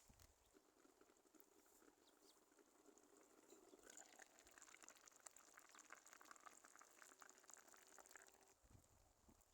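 Faint bubbling and sizzling of a clay tagine simmering over a campfire: a dense crackle of small pops that builds about four seconds in and thins out near the end.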